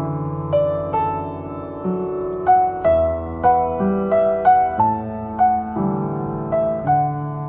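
Slow, gentle instrumental background music: single notes struck about once a second over held chords, with no singing.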